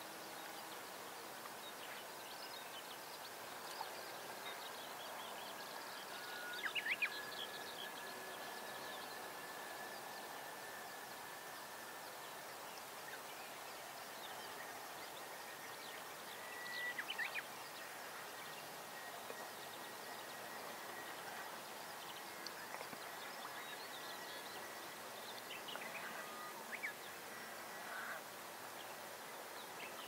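Siberian rubythroat giving a few brief, quiet vocal phrases, three bursts about ten seconds apart, over faint open-air background with a thin steady high whine.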